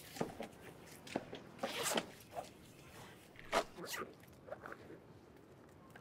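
Fabric bag being handled and zipped: a run of short rustles and scrapes, with a longer zipping sound about two seconds in.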